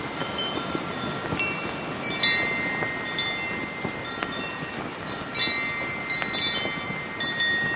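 Brass wind chimes ringing in heavy wind, struck in clusters about every second with long tones that hang on and overlap, over a steady rush of wind and a flapping flag.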